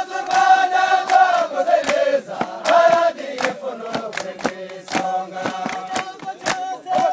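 A group of soldiers singing a chanted song together in unison, with sharp claps keeping a steady beat of about three a second; the held notes are strongest for the first three seconds.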